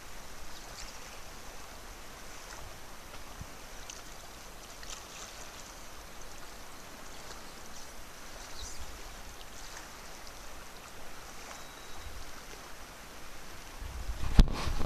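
Steady rush of a fast, rippling river flowing over shallows. A few loud knocks near the end.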